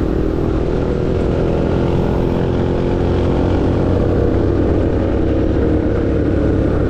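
Suzuki motor scooter's engine running steadily at cruising speed, with road and wind noise over it.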